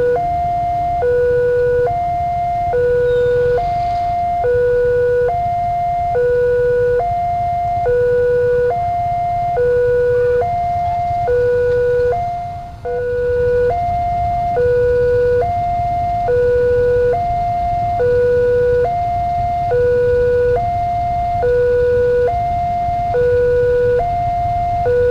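Level-crossing warning alarm sounding a repeating two-tone hi-lo electronic tone, the lower and higher tones taking turns about once a second. It signals that the barrier is down and a train is approaching. A low rumble runs underneath, and the alarm dips briefly about halfway through.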